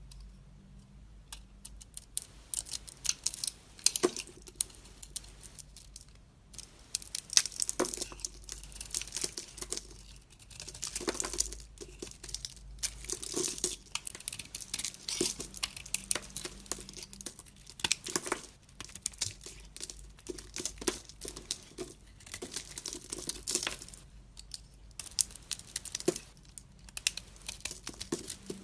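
A knife cutting into a bar of soap: crisp crackling and crumbling in repeated bursts of a second or two, with short pauses between strokes.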